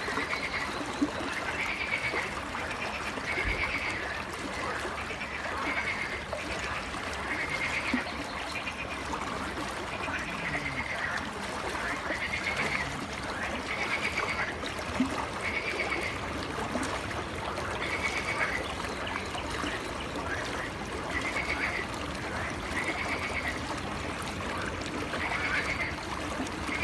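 Frogs calling, a short call repeated about every one to two seconds, over the steady rush of a flowing river.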